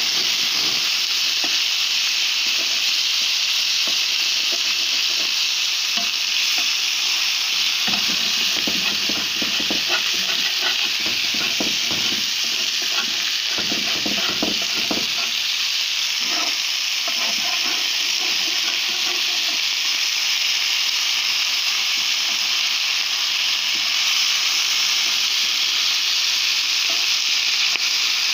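Chopped shawarma meat and merguez sausages sizzling steadily in a hot, smoking pan. Metal tongs and a skimmer scrape and turn them, most busily through the middle stretch.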